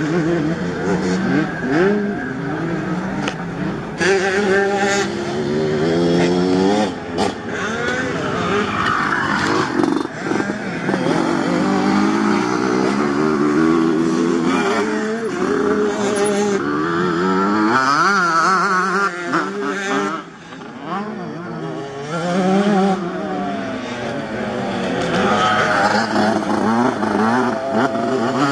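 Motocross bike engines racing through a dirt corner, several bikes revving up and down one after another as they pass.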